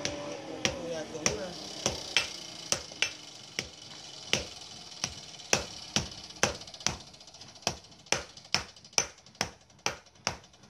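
Hand hammer striking iron held in tongs on a small anvil, in a steady run of sharp blows about two a second: hand-forging.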